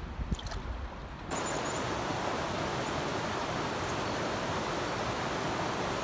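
Waterfall: a steady, even rush of falling water that starts abruptly a little over a second in. Before it come quieter water sounds with a few low knocks.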